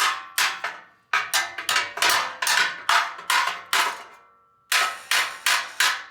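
Hammer blows on metal, about three a second, each leaving a short metallic ring, with a brief pause about four seconds in. A differential is being hammered straight off an old Polaris RZR 1000 frame.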